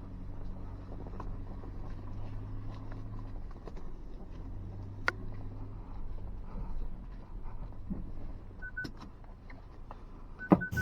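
2023 Ford Ranger Tremor's engine running low and steady as the truck crawls along the trail, heard from inside the cab. A few sharp knocks sound through it, and two short high beeps come near the end.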